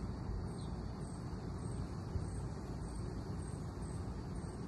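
Outdoor ambience: a low steady rumble, with a faint high insect chirp repeating about twice a second and a thin steady high insect buzz above it.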